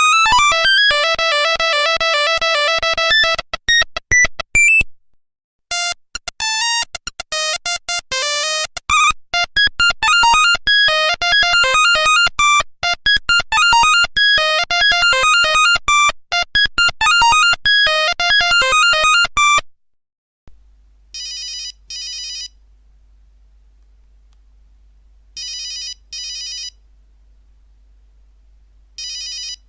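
Nokia 1100 monophonic ringtones. A fast melody of buzzy beeping notes, with a brief pause about five seconds in, ends near the twenty-second mark. A different tone follows: short double rings repeating about every four seconds over a faint low hum.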